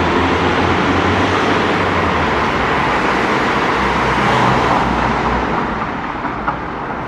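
Ambulance van driving past through a concrete underpass: engine and tyre noise that swells to a peak about four and a half seconds in, then eases into general street traffic.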